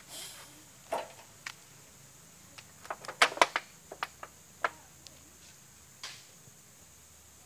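A scatter of short, sharp clicks and knocks, several in quick succession about three seconds in, over a low steady background.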